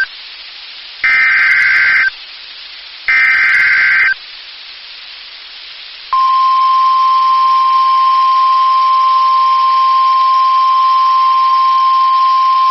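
NOAA Weather Radio emergency alert on air: the last two of the three SAME header data bursts, each a harsh buzzing warble about a second long and a second apart, with hiss between. About six seconds in comes the steady single-pitch warning alarm tone that marks a warning being issued.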